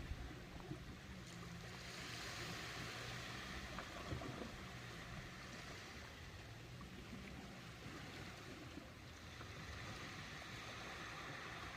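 Ocean surf washing in, a continuous rush of water that swells about two seconds in and again near the end.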